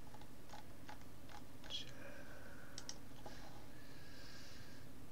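About half a dozen scattered clicks from a computer mouse and keyboard, over a steady low hum.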